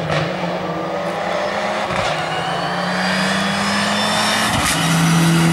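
Rally car engine pulling hard under acceleration, its note climbing slowly, with a brief break for a gear change about two seconds in.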